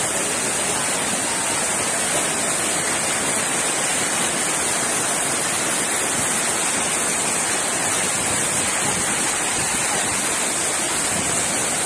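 Heavy rain falling in a steady hiss, with sheets of water pouring off a roof edge.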